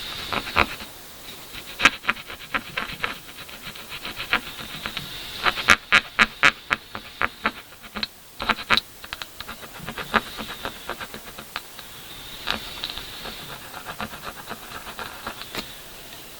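Quick scratching and scraping strokes of a tool working at dried paint on a canvas, in irregular flurries, over a faint steady hiss.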